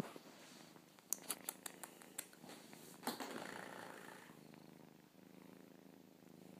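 Young kitten purring quietly and steadily, with a few sharp clicks about a second in and a short breathy rush around three seconds in.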